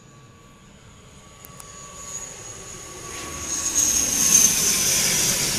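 Wings Air ATR 72 twin-turboprop passing low overhead on its landing approach. The engine sound grows louder, is loudest about four seconds in, and has a high whine that falls slightly in pitch as the aircraft goes by.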